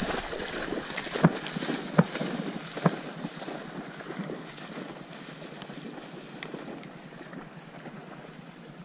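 A dog splashing into marsh water and swimming away, over steady wind noise on the microphone. There are a few sharp knocks in the first three seconds, and the water sound fades as the dog moves off.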